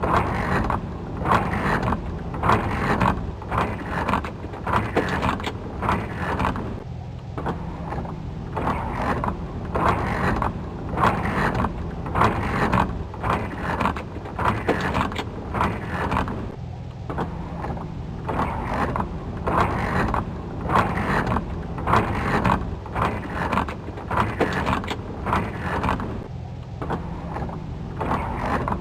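Mechanical working sounds from a 2007 Saturn Outlook: uneven, repeated clattering bursts about once or twice a second over a steady low hum.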